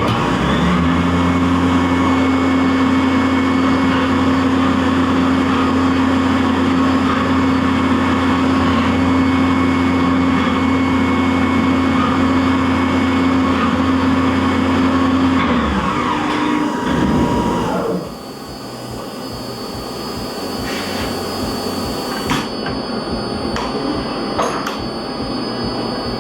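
CNC vertical milling machine running a program on Delrin, with a loud, steady spindle-and-cutting noise and a steady hum underneath. About 16 s in the pitch shifts briefly, and at about 18 s the noise drops sharply to a quieter machine hum with a few clicks.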